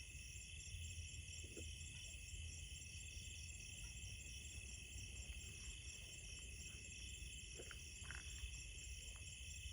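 Faint night-time chorus of crickets and other insects, several steady high trills layered together and pulsing rapidly, over a low rumble. A few brief faint calls stand out, twice near the end.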